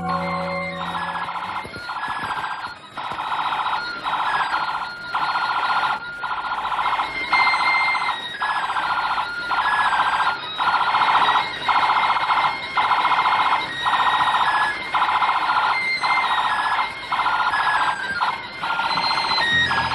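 Electronic toy sound effects: a warbling, siren-like electronic tone pulsing on and off about every second, like battery-powered toys' alarm and siren sounds.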